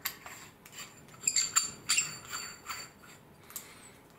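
An Aeroflow 45-degree -20 AN fitting being turned by hand in an aluminium thermostat housing adapter: a string of sharp metallic clicks and clinks with a brief ring, loudest around the middle.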